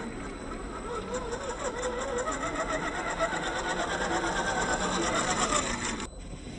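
Electric motor and gearbox of an RC 4x4 scale crawler whining under throttle, the pitch wavering and creeping upward as it grows louder, then cutting off suddenly near the end.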